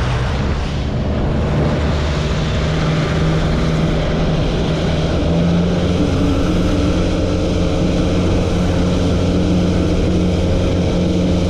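A 200 hp outboard motor running steadily at trolling speed, pushing the boat along with water rushing in its wake.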